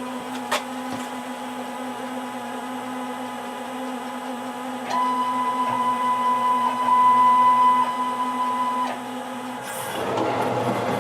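CNC tube cutter running with a steady hum and a sharp click about half a second in. From about five to nine seconds a steady high-pitched whine joins it, and a louder, rougher noise starts near the end.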